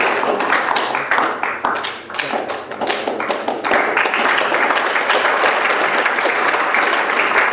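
Audience applauding: many hands clapping in a dense, even patter, dipping briefly about two seconds in.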